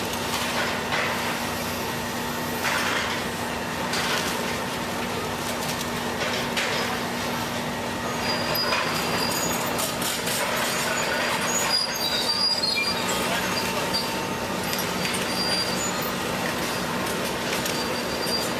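Liebherr R944C excavator working a pile of fire rubble: its engine runs at a steady hum under the scrape and clatter of debris, with high metallic squeals between about 8 and 13 seconds in.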